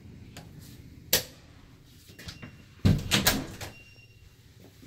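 A door being handled and shut: a sharp click about a second in, then a loud cluster of knocks and rattles around three seconds in.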